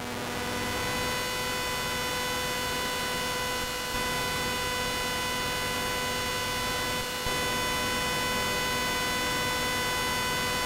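SOMA Ether anti-radio turning the electromagnetic fields of a car's dashboard electronics into sound: a steady electronic buzz made of several fixed tones over a hiss. The level jumps slightly about four and seven seconds in.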